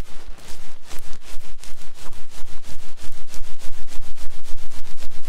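Fast, rhythmic ASMR scratching on the microphone: several rough strokes a second, each a short hissing scrape over a low rumble of the mic being handled. It starts abruptly and holds steady.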